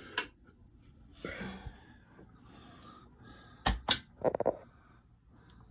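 Handling noise as wires and clips are set up: a sharp click near the start, soft rustling, then two sharp clicks in quick succession followed by a brief rattle of small hard parts a little past the middle.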